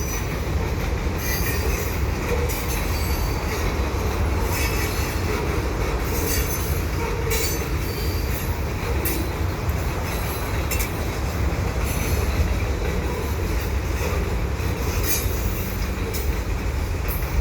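Freight cars, including empty flat cars, rolling past on steel wheels: a steady low rumble with brief high-pitched wheel squeals now and then.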